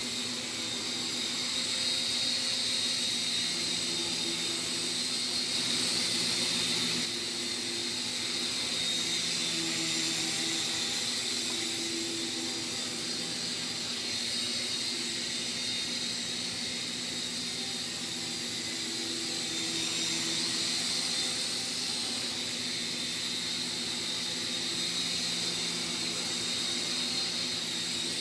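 World Tech Toys HeliCommand toy RC helicopter flying: its small electric rotor motors and blades give a steady high whine and whir. The whine rises and falls a little in pitch and level as it flies.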